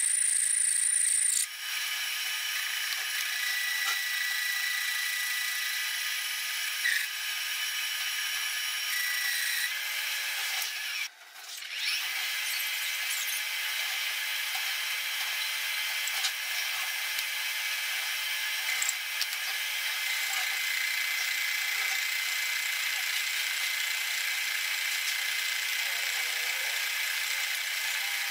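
Metal lathe running and cutting a steel tube, first turning the outside and then boring out the inside, a steady high whine of ringing tones over cutting noise. The sound changes about a second and a half in and dips briefly about eleven seconds in.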